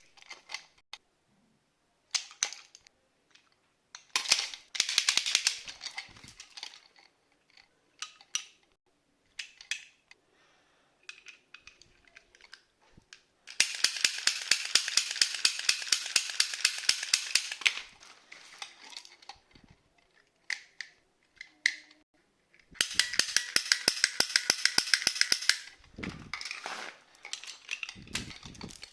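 Toy cap guns clicking and snapping with scattered single shots and short bursts, then two long runs of rapid, evenly spaced shots, several a second, about 14 and 23 seconds in.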